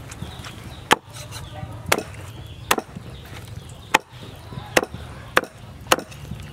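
Meat cleaver chopping through roast pork onto a wooden chopping board: seven sharp chops, roughly one a second, slightly uneven.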